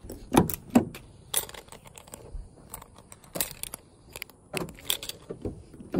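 Irregular sharp clicks and rattles of a 2006 Honda Accord's exterior door handle being pulled and the door opened, mixed with phone-handling noise; the loudest clicks come in the first second.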